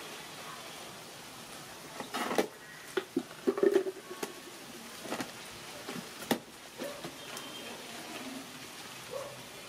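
Wet handling sounds of a baby monkey being soaped and scrubbed: rubbing and splashing with several sharp slaps or knocks, and a short low call a little more than a third of the way in.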